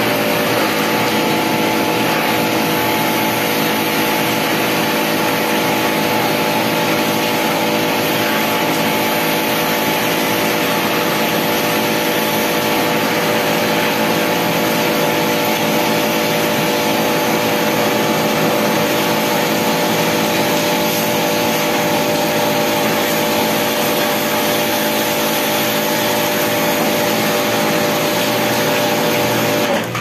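Pressure washer running steadily while the air-conditioner's outdoor unit is sprayed for cleaning, a continuous motor hum under a hissing spray, cutting off suddenly near the end.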